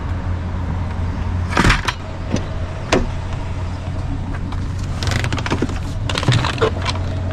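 Truck engine idling, heard from inside the cab as a steady low hum, with a handful of sharp clicks and knocks, the loudest about a second and a half in and a cluster near the end.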